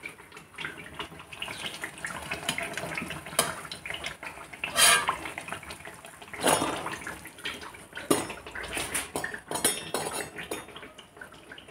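Metal perforated skimmer clinking and scraping against a kadhai and a steel bowl, with light sounds of oil and syrup, as fried malpua are lifted out of the hot oil and dipped into sugar syrup. A few sharper clinks come about halfway through.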